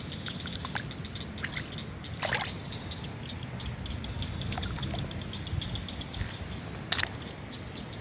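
Creek water trickling and flowing steadily, with a couple of sharp cracks about two seconds in and again near seven seconds, the loudest sounds.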